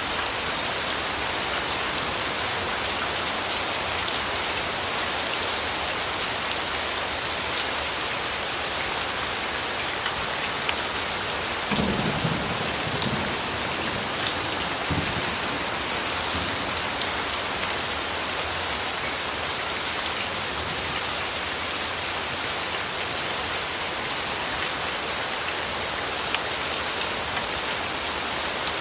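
Steady rain pattering on a surface, with a brief low rumble about halfway through.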